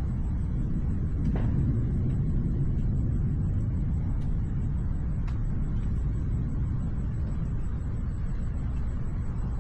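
Night thunderstorm ambience: a steady low rumble, with a few faint sharp ticks scattered through it.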